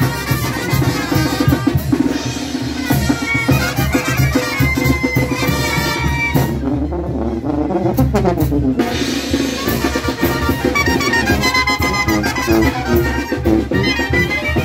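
A calenda brass band playing, with trumpets and a sousaphone over a steady drum beat.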